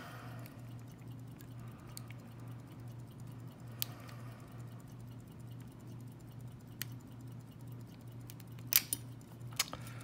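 Small metallic ticks and clicks of a hook pick and tension wrench working the pin stack inside a Master Lock lockout-tagout padlock's keyway, with a few sharper clicks, the loudest near the end.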